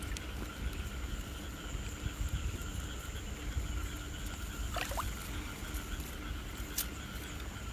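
Low rumbling and sloshing of muddy water as an arm gropes in a flooded eel hole, under a steady night chorus of frogs and insects holding several high tones. A brief falling squeak comes about five seconds in, and a sharp click near the end.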